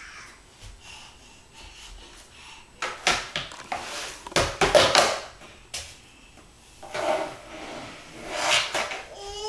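Plastic dustpan and broom scraping and rubbing on a hard floor in a few rough bursts, mostly after the first three seconds.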